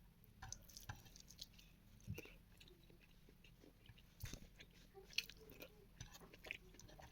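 Faint close-up sounds of a person chewing food, with scattered wet mouth clicks and smacks; the sharpest come about two seconds and four seconds in.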